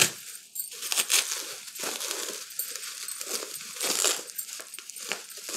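Plastic bubble wrap crinkling and crackling as it is handled and pulled open by hand, with irregular sharp clicks throughout.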